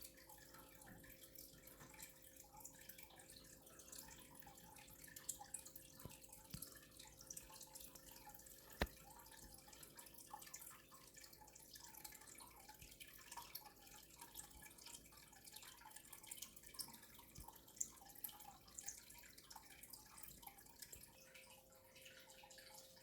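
Near silence: faint room tone with a steady low hum and scattered small ticks, with one sharper click about nine seconds in.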